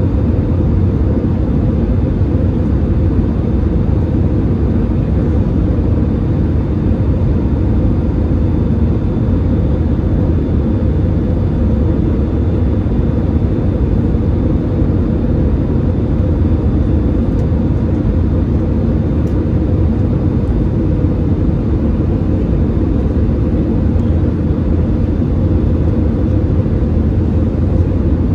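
Airbus A320-216 cabin noise on final approach: the steady rumble of its CFM56 engines and the airflow, heard from a window seat over the wing. A faint steady high whine runs above it.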